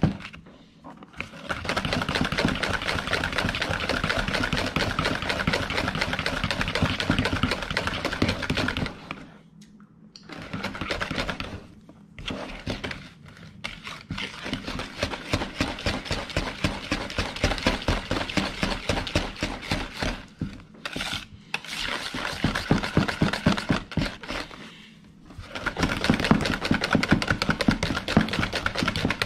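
Wire whisk beating cream cheese frosting in a white mixing bowl: fast, even strokes of the wires against the bowl in long runs, stopping briefly several times, near the start, about nine seconds in, and near the end.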